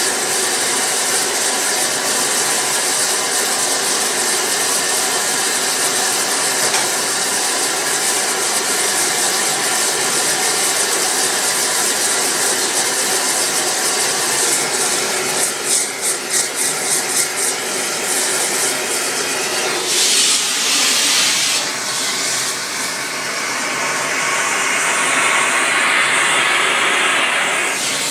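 Large gas melting torch flame burning with a steady loud hiss while heating sterling silver. The hiss flutters about halfway through, then surges suddenly. Near the end a whistling tone rises and then falls.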